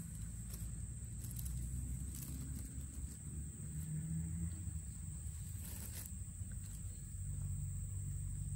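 Steady high-pitched drone of insects, with a low hum underneath and a few brief crackles.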